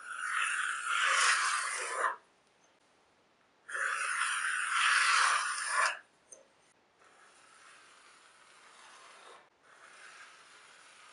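Pencil drawing long lines along a ruler on a plywood board: two loud scratchy strokes of about two seconds each, then two fainter, longer strokes.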